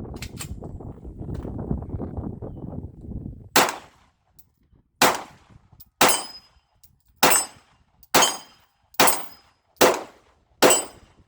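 Canik pistol fired eight times, about one shot a second after a short pause, each shot a sharp crack with a brief ringing tail. Before the shots there are a few clicks and some handling noise.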